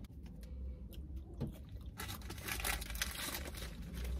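Fast-food paper packaging crinkling and rustling as it is handled, a few small clicks at first and then a dense crackling from about halfway through.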